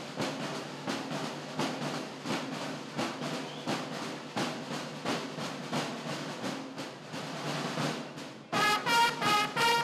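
Drums beating a steady march rhythm. About eight and a half seconds in, a group of long straight natural trumpets comes in loud, playing held fanfare notes.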